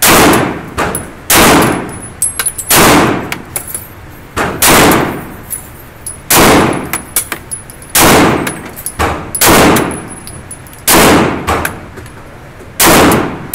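9mm Glock 17 pistol firing at a slow, steady pace: nine loud shots, about one and a half to two seconds apart, each echoing off the indoor range's concrete walls, with fainter sharp cracks and clinks between them.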